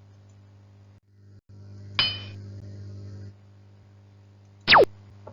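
Editing sound effects: a bright chime about two seconds in, fading within half a second, then near the end a quick, loud falling whistle, over a steady low hum.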